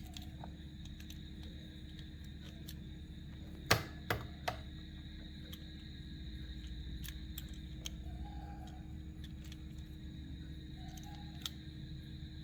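A few light clicks and taps from a small diecast model car and its plastic parts being handled, one sharper click a few seconds in, over a steady low room hum.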